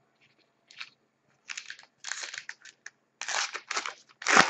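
A trading-card pack wrapper being torn open and crinkled by hand: a run of irregular crackling bursts, getting denser, with the loudest crackle near the end.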